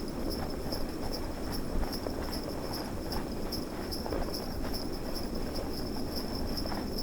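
Sleigh bells jingling in a steady rhythm, about three to four shakes a second, over a steady low rush of snowstorm wind.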